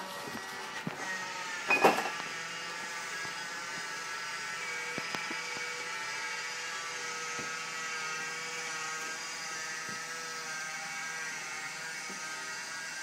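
Electric drive of a model gondola lift whirring steadily as its cabins run along the cable, with a short loud clatter about two seconds in.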